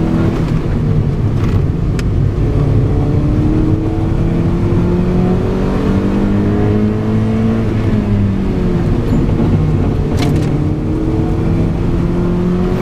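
Mazda MX-5 NB's four-cylinder engine heard from inside the cabin, revving slowly upward under load. About two-thirds through the revs drop briefly, then climb again, with a few sharp clicks near the start and near the end.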